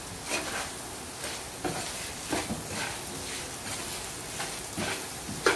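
A wooden spatula stirs and scrapes boiled potato cubes through frying masala in a non-stick pan. A steady sizzle runs under irregular scrapes and taps, with the loudest scrape near the end.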